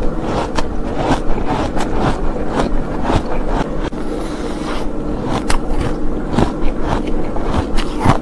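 Close-miked chewing of soft, crunchy packed frost ice: sharp crunches about twice a second, with a short pause about halfway through as a fresh bite is taken.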